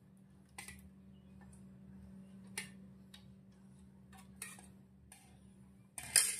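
Stainless steel spoon clinking against a steel bowl and steel thali while dal is spooned out: a few sharp separate clinks, then a louder clatter near the end. A faint steady low hum runs underneath.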